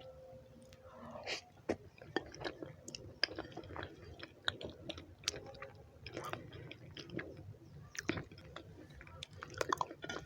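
Close-miked chewing of rice and beans, with irregular wet mouth clicks and soft squishing as the food is chewed.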